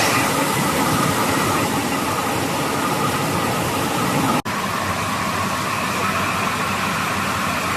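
Horizontal glass washing and drying machine running, a steady rushing machine noise from its blowers and motors, briefly cut off for an instant about four and a half seconds in.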